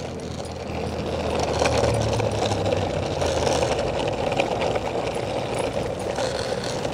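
Steady rumbling road noise of wheels rolling over asphalt.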